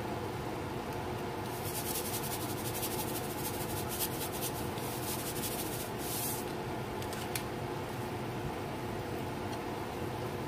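Coarse kosher salt shaken from a cardboard canister into a pan of water: a dense, gritty rattle of grains that starts about a second and a half in and stops about five seconds later, over a steady background hum.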